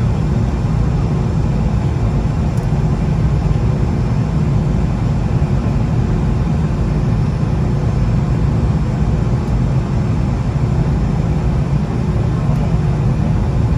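Cabin noise of a Boeing 717-200 taxiing in after landing: the rear-mounted Rolls-Royce BR715 engines idling and the airframe rolling on the taxiway, heard inside the cabin as a loud, steady low rumble.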